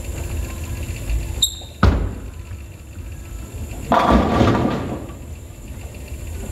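A bowling ball lands on the lane with a sharp thud. About two seconds later it crashes into AMFlite II pins set by a Qubica AMF Edge string pinspotter, giving a clattering crash of under a second: a strike.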